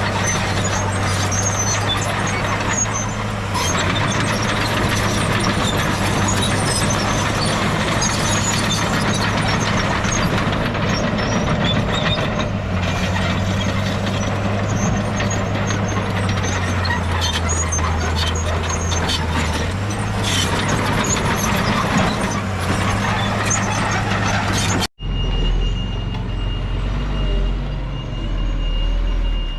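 Heavy diesel earthmoving machinery working: a steady engine drone with clanking and rattling throughout. About 25 seconds in the sound cuts out abruptly and comes back as a lower engine rumble with a steady high-pitched tone over it.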